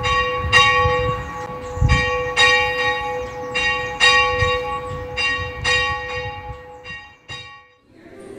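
Church bell ringing: a run of strokes about every half second to a second, each ringing on, growing fainter toward a last stroke about seven seconds in.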